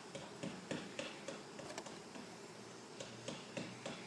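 Faint, irregular light ticks and taps, a few each second, as the wooden hive box and plastic hive-top feeder are handled and shifted into place on the beehive.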